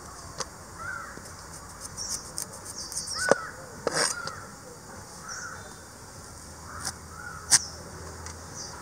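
Serrated knife cutting into a raw sweet potato and knocking on a wooden chopping board: a few sharp knocks, the loudest about three and a half and seven and a half seconds in. Birds call briefly several times in the background.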